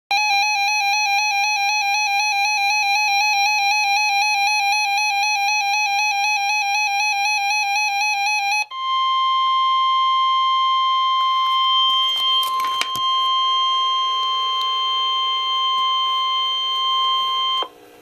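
A weather alert radio sounds a fast-warbling electronic alarm for about nine seconds. It is followed by the steady NOAA Weather Radio 1050 Hz warning alarm tone, which holds for about nine seconds and then cuts off, with a few clicks partway through. It is the alert signal that precedes a broadcast severe thunderstorm warning.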